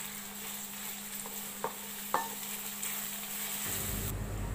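Sliced onions frying in hot mustard oil in an aluminium pot, sizzling steadily as they are stirred with a spoon and browned lightly. A couple of light taps of the spoon on the pot come about halfway through.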